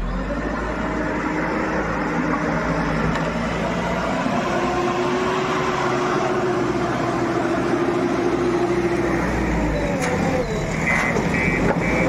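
JCB 4x4 backhoe loader's diesel engine running under load as the front bucket works soil, its pitch rising a few seconds in. Near the end a reversing alarm beeps several times.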